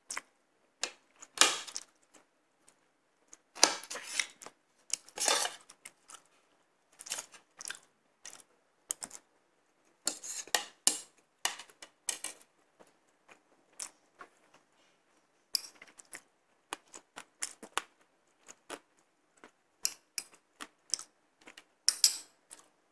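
Fork and spoon clinking and scraping against ceramic plates and a small bowl during eating, in short irregular clinks, with chewing in between.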